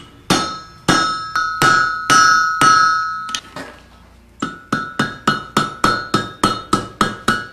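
Blacksmith's hammer striking hot iron on an anvil, each blow ringing: a run of irregular blows, a brief pause about three and a half seconds in, then steady rapid blows about three a second. These are the blows that forge-weld the overlapped ends of a chain link.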